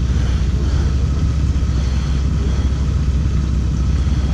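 A vehicle engine running steadily, a low, even rumble with no revving.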